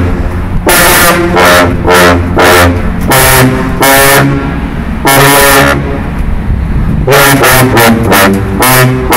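A tuba section of four sousaphones playing a fanfare together: loud, short, repeated low brass blasts in a steady driving rhythm, with a few longer held notes around the middle and a quicker run of notes near the end.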